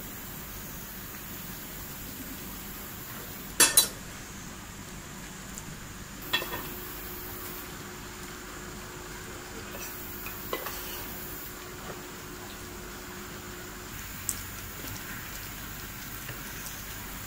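Forks and dishes clinking a few times during a meal, the loudest a sharp double clink about three and a half seconds in, over a steady background hiss.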